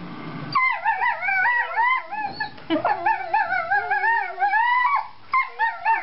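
A Treeing Walker Coonhound puppy crying in long, high-pitched, wavering whines and howl-like yowls while play-fighting with its littermate. The crying runs almost without a break from about half a second in, pauses briefly near the end, then resumes in shorter cries.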